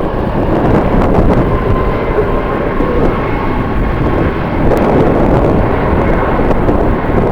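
Jet airliner engines running, a steady rumble with a faint high whine, heard through heavy wind buffeting on the microphone.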